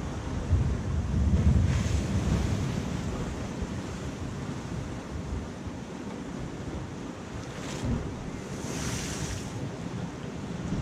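Sea waves washing against a rocky shore, with wind buffeting the microphone. A heavier low rumble comes about a second in, and a hissing wash of water rises and falls near the end.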